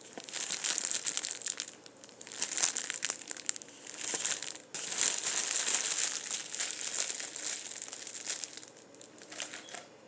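Clear plastic crinkling and rustling as hands wrap a popcorn ball in it. It comes in long stretches with brief pauses about two seconds and about four and a half seconds in, and thins out near the end.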